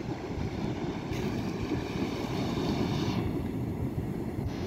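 Steady low rumble of wind on the microphone and sea surf, with a brighter hiss joining for about two seconds in the middle.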